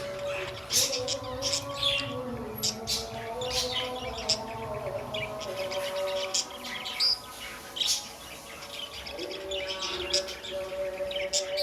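Budgerigars chirping and chattering: a busy stream of short, quick chirps.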